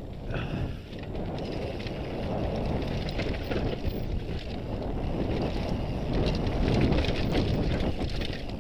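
Mountain bike riding fast over a rocky dirt trail: tyres rolling over dirt and stones, the bike clattering over bumps, and wind buffeting the microphone.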